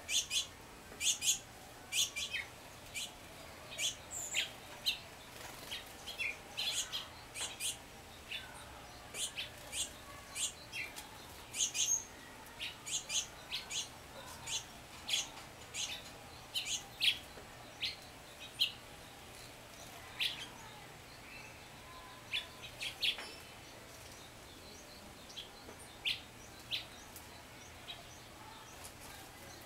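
Small wild songbirds giving many short, high-pitched chips and tweets, in quick succession for most of the time and sparser near the end.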